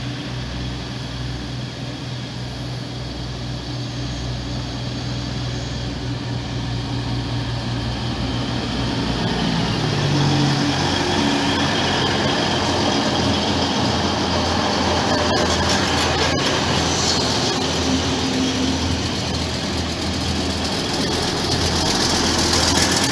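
DB Class 612 diesel multiple unit pulling slowly along the platform, its underfloor diesel engines droning and its wheels rolling on the rails. The sound grows steadily louder as the train draws near and passes, and the engine note shifts about ten seconds in.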